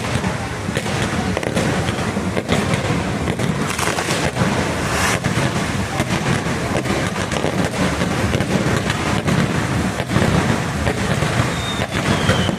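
Fireworks display going off in a dense, continuous run of crackles and bangs over a low rumble. A thin falling whistle starts near the end.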